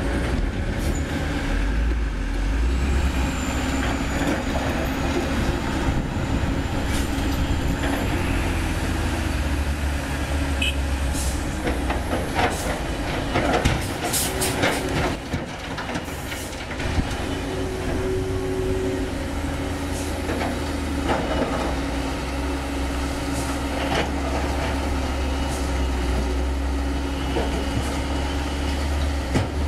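Heavy diesel engines of a Doosan DX300LCA hydraulic excavator and Hino dump trucks running steadily, with scattered clanks and knocks of rock being loaded into a steel dump-truck bed, a cluster of them about halfway through.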